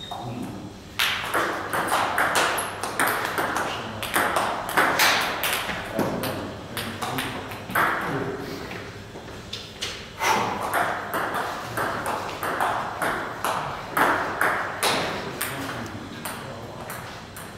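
Table tennis ball clicking off rackets and the table in rallies, the hits coming a fraction of a second apart and echoing in a large hall.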